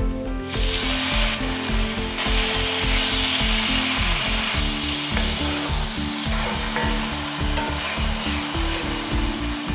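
Soy sauce sizzling as it hits hot oil and minced garlic in a cast-iron skillet, starting about half a second in and running on steadily while the pan is stirred with a wooden spatula. Instrumental background music plays underneath.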